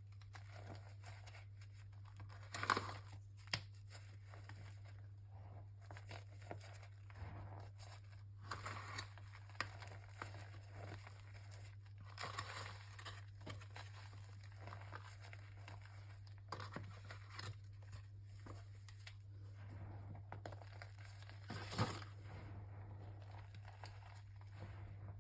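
Sticks of gritty chalk crunching and crumbling in irregular crackly bursts, with the sharpest snaps about three seconds in and again near the end, over a steady low hum.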